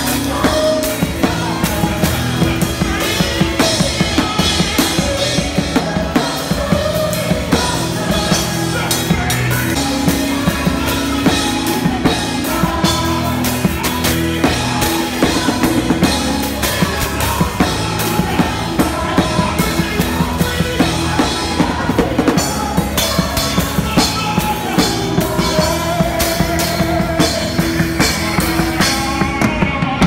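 A live gospel band led by a drum kit heard up close: dense, rapid snare, kick-drum and cymbal hits drive the music, with other pitched instruments or voices beneath.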